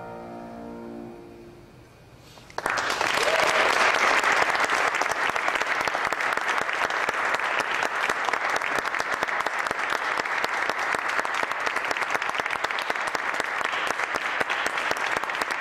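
The last chords on a grand piano fade away, and about two and a half seconds in an audience breaks suddenly into steady applause.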